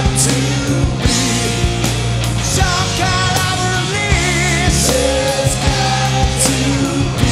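Live rock band playing loud and steady: drum kit, bass guitar and electric guitars together.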